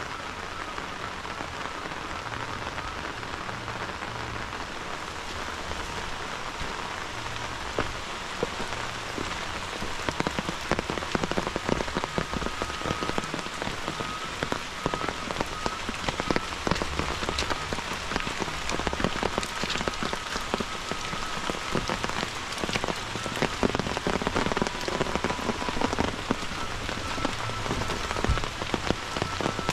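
Heavy rain falling steadily. From about a third of the way in, many big drops patter close by on leaves in sharp, irregular clicks.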